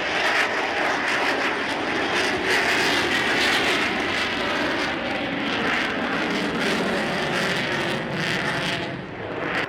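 Engine noise of a fixed-wing aircraft flying past during an air show display, steady and loud, with a brief dip near the end.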